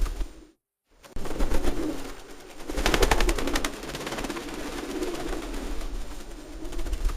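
Feral pigeons cooing in a low, steady murmur. A burst of rapid clattering comes about three seconds in. The sound cuts out completely for about half a second near the start.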